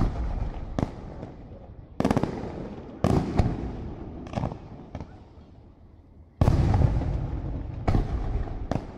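Aerial firework shells bursting in quick succession, about eight bangs in nine seconds. Each sharp bang is followed by a rolling rumble that dies away, and the loudest bang comes about six and a half seconds in.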